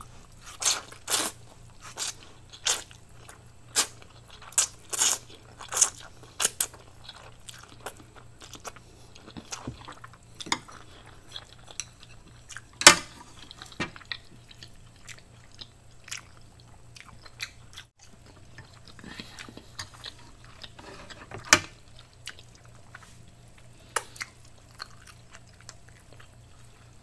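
Close-miked chewing of a mouthful of Indomie Mi Goreng instant noodles: wet mouth clicks and smacks, about one or two a second for the first several seconds, then sparser, with a couple of louder smacks later on.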